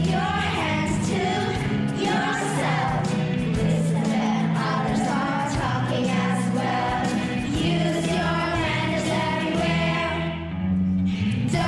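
A song with a backing track and a group of voices singing over steady bass notes, dipping briefly near the end.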